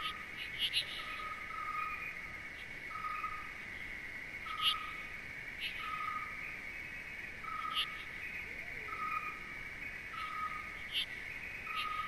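Nature ambience of calling animals: a steady high insect-like trill, a short piping note repeated about once a second, and brief high chirps every second or two.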